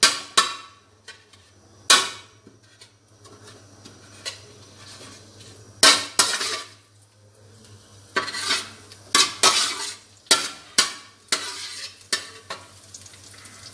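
Metal spatula scraping and knocking against a frying pan while stirring chillies in a little hot oil, with a faint sizzle. The strokes come now and then at first, then in a quick run in the second half.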